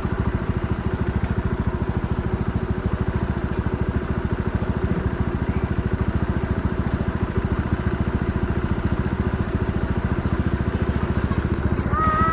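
An engine running steadily, a rapid even pulse at constant level. A brief high chirp comes near the end.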